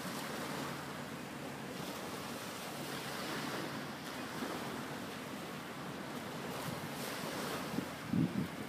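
Small waves breaking and washing over a pebble beach, a steady hiss, with wind rumbling on the microphone and gusting harder near the end.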